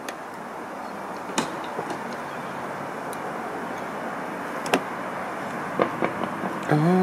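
A handful of sharp, separate clicks from a one-handed yellow bar clamp being worked against a steady outdoor hiss. A voice hums briefly near the end.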